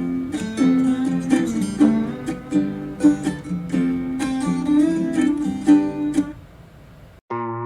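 Plucked acoustic guitar music played through a Sony SRS-XB01 portable Bluetooth speaker. The music fades out about six seconds in, and a different track begins just before the end.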